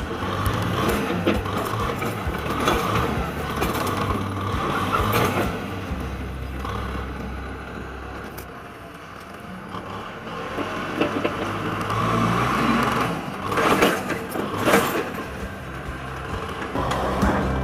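Kubota tractor's diesel engine working under load as its front dozer blade pushes soil. The engine fades for a few seconds midway and then comes back. Louder scraping and cracking of earth and roots comes a few seconds before the end.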